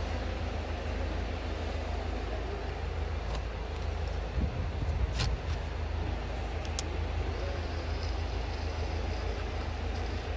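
Steady low drone of a truck engine idling, most likely the sky lift truck running its boom, with a few sharp clicks about five and seven seconds in.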